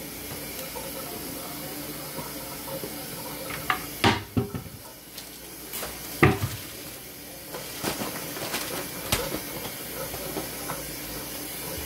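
A few sharp knocks and rustles of kitchen handling, the loudest about four and six seconds in, over a steady background hiss.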